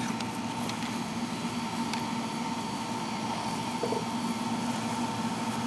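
1977 Chevy Caprice's 305 small-block V8 idling steadily through a Y-pipe and about a foot of straight pipe, with no revving.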